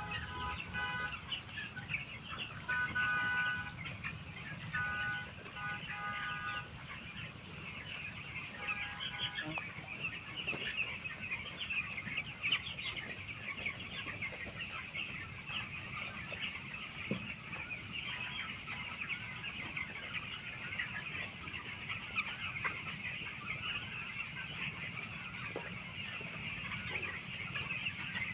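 A flock of 13-day-old chicks in a poultry shed peeping continuously, a dense high chirping from many birds. In the first nine seconds a horn sounds four times in short steady toots.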